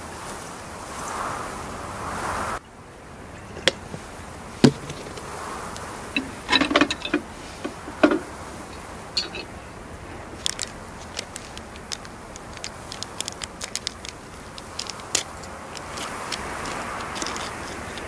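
Handling of a small espresso pod machine on a metal tray: a few sharp knocks and clicks as the water tank and parts are fitted. Then a run of small quick crackles as a plastic wrapper is torn open.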